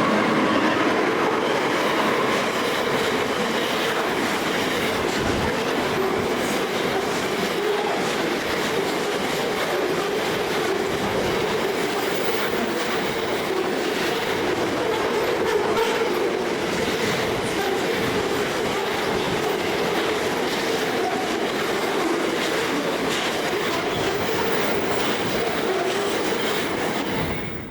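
Wagons of a freight train hauled by CFCLA GL class diesels rolling past at speed: a steady rumble of wheels on rail with a continuous rapid clatter over the rail joints.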